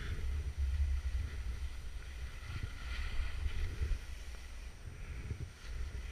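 Skis hissing and scraping through snow, the hiss swelling and fading with the turns, under a low rumble of wind buffeting the microphone.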